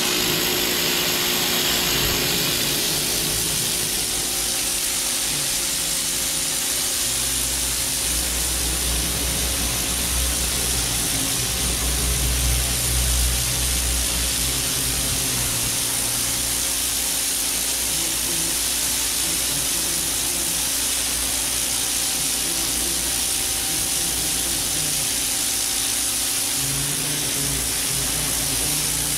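A Stanley pressure washer runs steadily while its turbo tip blasts a jet of water onto face brick. The sound is a continuous loud hiss of spray over the pump's hum.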